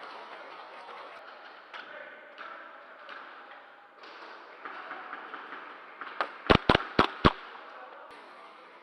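Four sharp airsoft gun shots in quick succession, over a faint background of an indoor game arena.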